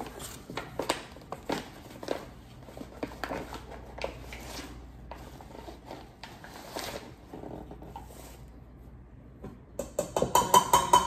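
Flour being scooped from a paper bag with a metal measuring cup and tipped into a metal mixing bowl: scattered soft rustling and scraping, then near the end a rapid, ringing clatter of the metal cup knocking against the bowl.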